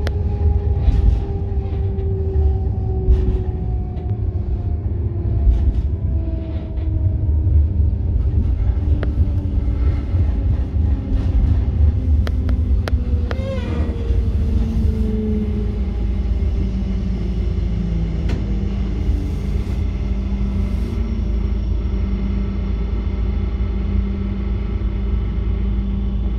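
Electric train running with a steady low rumble, its motor whine falling slowly in pitch as the train slows, then holding steady for the last ten seconds or so. Sharp wheel clicks over the rail joints come through in the first several seconds.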